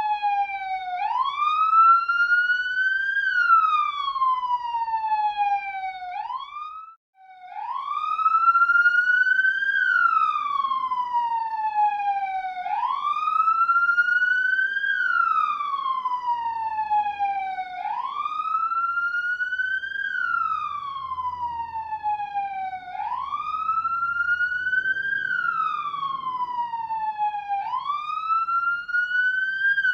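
Police siren wailing, its pitch sweeping up and down in slow cycles of about five seconds. It cuts out for a moment about seven seconds in, then starts again.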